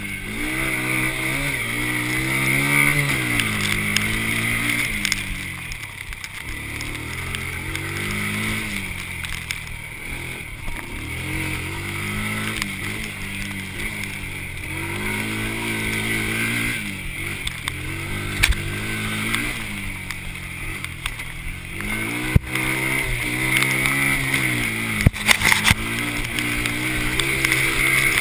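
Honda TRX90 quad's small single-cylinder four-stroke engine, revving up and easing off again and again every few seconds as it is ridden. A few sharp knocks come in the second half.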